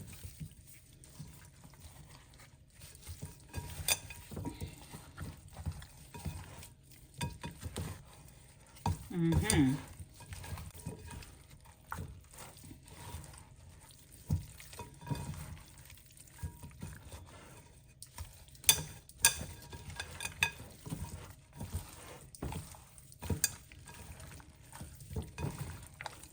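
Raw chicken wings being tossed and mixed with dry seasoning in a bowl: irregular soft knocks and scrapes against the bowl.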